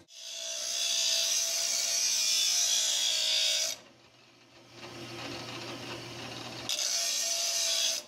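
Stainless steel buckle ground against an abrasive disc spinning in a drill press: a loud, gritty grinding with a thin steady whine. It eases to a quieter run with the motor humming a little before four seconds in, then the full grind starts again near the end.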